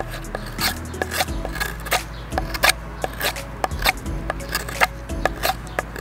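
A Benchmade CLA 4300 knife's drop-point blade shaving and scraping along the edge of a wooden board in short, irregular strokes, about two or three a second.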